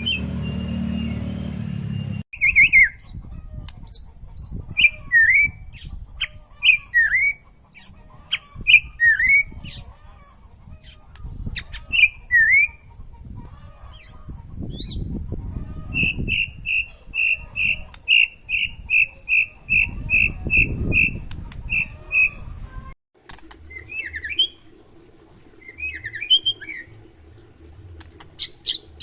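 White-rumped shama (murai batu) singing a varied song of loud downward-swooping whistles and sharp high notes, with a run of about a dozen quick, evenly repeated notes in the middle. A low hum runs under the first two seconds and cuts off suddenly.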